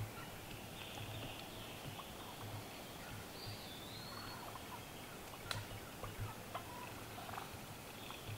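Wild turkeys calling faintly in short calls, mostly in the second half, with a high bird whistle about three and a half seconds in and a single sharp click a couple of seconds later.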